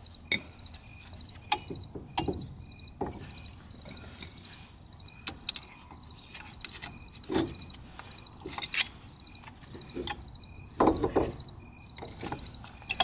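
Metal clicks, scrapes and knocks as a screwdriver forces the inner brake pad into the spring clips of a 2005 Ford Focus front brake caliper. The knocks come irregularly, the loudest about nine and eleven seconds in, over steady rhythmic chirping of insects.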